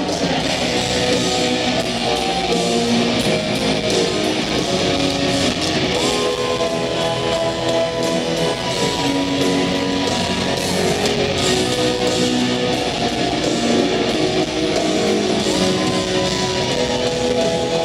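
Live rock ballad heard from the stadium audience: piano chords under an electric guitar solo, with one long sustained note bent up about six seconds in and another shorter bend near the end.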